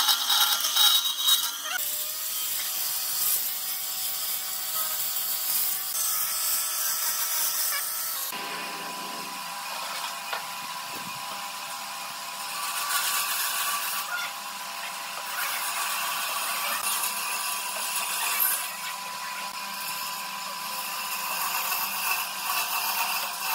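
Woodworking tools working wood: a scraping, sawing kind of noise whose character changes abruptly twice.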